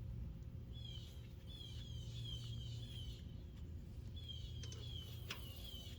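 A songbird singing two runs of short, down-sliding chirps repeated about three a second, the first run ending about halfway through and the second starting soon after. A steady low hum lies underneath, and there is one short click near the end.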